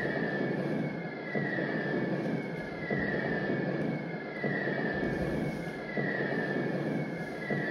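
Looping electronic soundscape: a dense droning rumble with a high falling tone that repeats at an even pace, about once every one and a half seconds.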